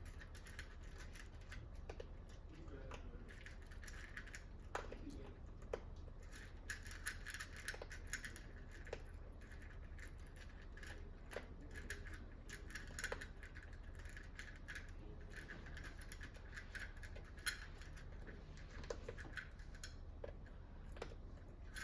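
Yorkshire terrier eating: a long run of quiet, irregular clicks and crunches as it chews its food.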